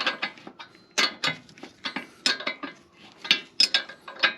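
Ratchet wrench worked in short strokes on the nut of the camber arm's ball joint, about ten bursts of metallic clicking and clinking at an uneven pace. The nut is being snugged until its slot lines up with the cotter-pin hole.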